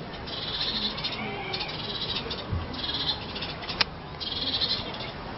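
A cat chattering 'ke-ke-ke' and a bird chirping back, in repeated short, high bursts about a second apart, with a single sharp click about four seconds in.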